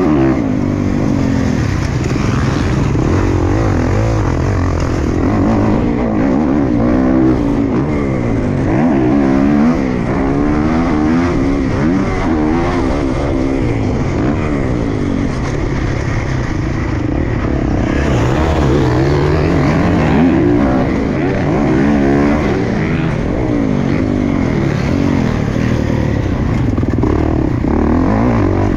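Motocross dirt bike engine being ridden hard, its pitch climbing and dropping again and again as it revs up and shifts through the gears.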